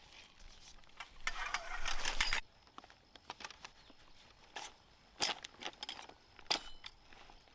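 Rustling lasting about a second, then scattered light clicks and taps, as from objects being handled.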